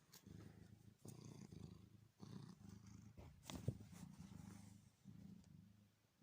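Domestic cat purring close up, a quiet low rumble that pauses briefly about once a second as the cat breathes in and out. A short sharp click sounds about three and a half seconds in.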